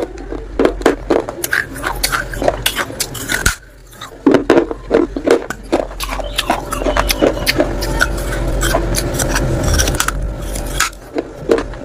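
Person biting and chewing pieces of unglazed clay pot close to the microphone: a rapid run of dry, sharp cracks and crunches, with a brief pause about three and a half seconds in.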